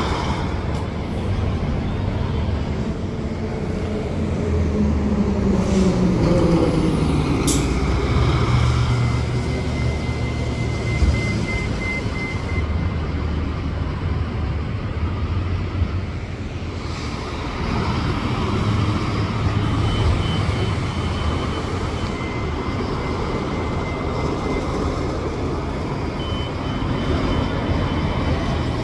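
City buses and street traffic running and passing. One engine note drops in pitch over the first several seconds, a sharp click comes about seven seconds in, and a thin high whine sounds briefly a few times.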